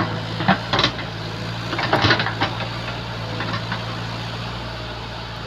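Backhoe loader engine running steadily, with short clanks and scrapes about half a second in, just under a second in, and a cluster around two seconds in.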